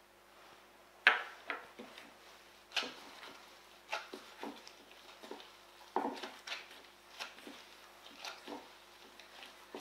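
A metal spoon clinking and scraping against a stainless steel mixing bowl, and the bowl knocking as craquelin paste is mixed and kneaded in it: irregular sharp clinks and knocks, the loudest about a second in.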